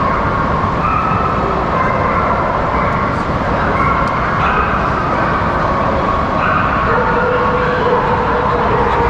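Dogs whining and barking over a steady din of a large crowded hall.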